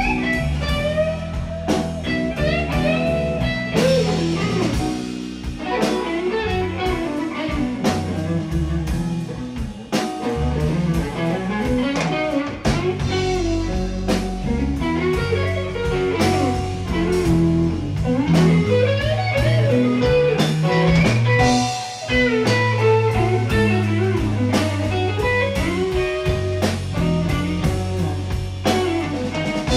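Live blues band playing: bending lead lines over electric guitar, bass guitar and drum kit.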